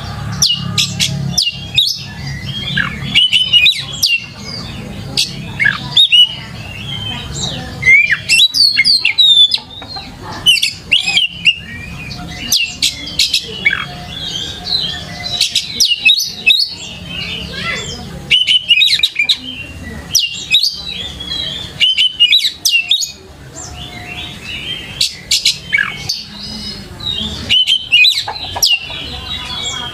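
Oriental magpie-robin singing energetically in full song. It gives a fast, varied run of loud whistles, slurred notes and sharp chirps in short phrases, with brief pauses between them.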